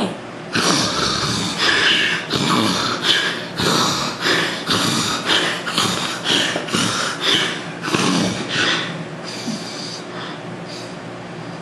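A man snorting and breathing noisily through the nose in quick bursts, about one and a half a second, trailing off about nine seconds in.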